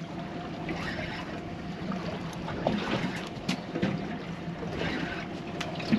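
Water sloshing against the hull of a boat at sea, with wind on the microphone, a low steady hum and a few light knocks.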